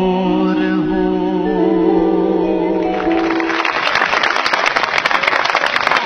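A song ends on long held notes, and about three seconds in an audience breaks into dense applause that carries on.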